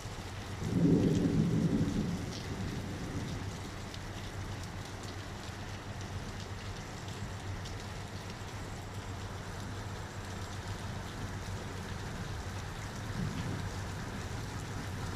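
Steady rain falling, with a loud rumble of thunder about a second in and a fainter rumble near the end.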